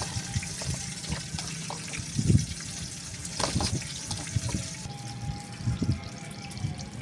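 Hands tossing raw potato strips coated in wet masala in a steel bowl: a soft, wet rustling with a few sharp clicks. Irregular low rumbles run underneath.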